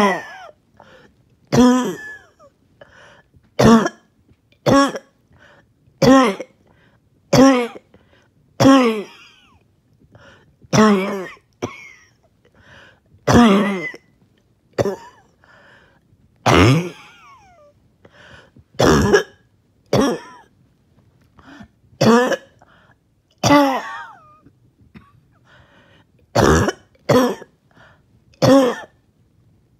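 A person's harsh, choking cough, coming in short loud bursts every second or two with throat clearing, from breathlessness after exercise.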